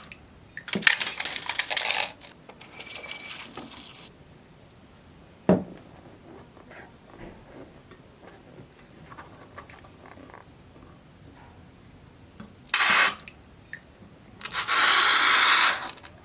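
Slime-making handling noises: several loud bursts of crackling, rattling noise, a single thump about five and a half seconds in, and faint fiddling sounds between.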